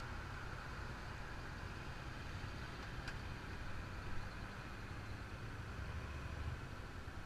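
Motorcycle engine running steadily at low speed, a low, even rumble.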